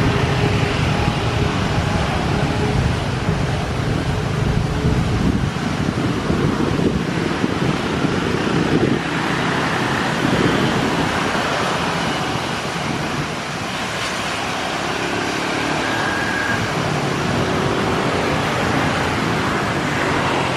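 Jet engines of a Boeing 737 running steadily at low power as it taxis: a continuous low rumble with a hiss above it.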